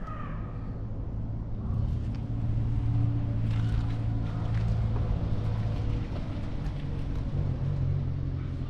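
Low, steady drone of a motor vehicle's engine, swelling about two seconds in and easing off near the end, with a brief high cry at the very start.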